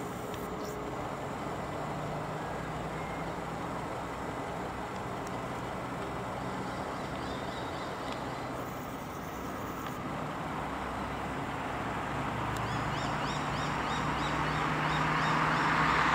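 Road traffic running steadily, with a vehicle approaching and growing louder over the last few seconds. A short, high call repeats several times a second near the end.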